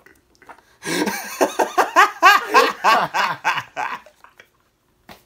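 Two men laughing hard together, a rapid run of repeated 'ha' pulses that starts about a second in and dies away after about three seconds.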